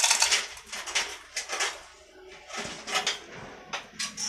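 Irregular metallic clinks, clanks and rattles of hoist chain and engine metal as a Colt Diesel truck engine hanging from a chain hoist is worked loose by hand.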